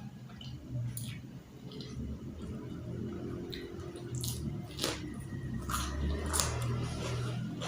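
Close-up chewing of a person eating, with wet mouth and lip smacks and scattered crunchy clicks.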